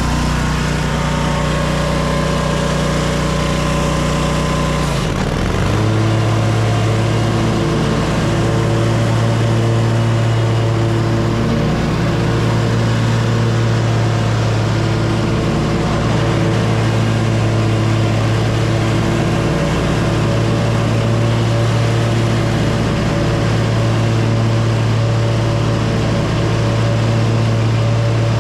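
Lawn mower engine running steadily under load. It changes note about five seconds in, then holds the new note.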